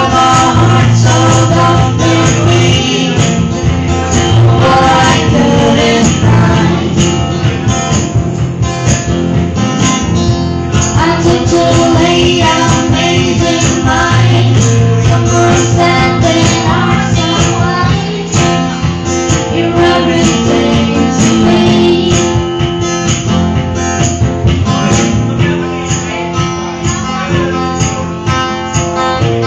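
Live acoustic band playing: an acoustic guitar strummed with singing over a steady beat.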